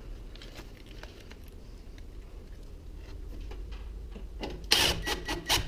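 Faint rustling and small clicks as screws are handled, then, about four and a half seconds in, a Craftsman cordless drill driving a screw into a garage door opener's cover panel in a quick run of short bursts.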